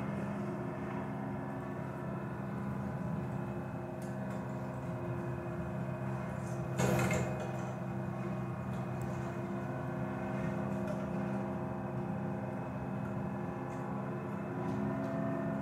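Film soundtrack of WWII landing craft approaching the beach: a steady engine drone made of several held low tones, with one brief sharp crack about seven seconds in.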